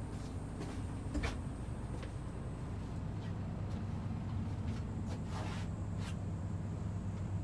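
Mitsubishi 6D17 six-cylinder diesel of a parked Aero Midi bus idling steadily with a low hum, heard from inside the cabin. A few light knocks come about a second in and a brief rustle comes later, from someone moving through the aisle.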